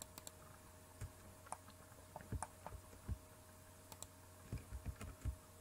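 Faint, scattered clicks of a computer mouse and keyboard keys, a few at a time with short gaps, over a faint steady hum.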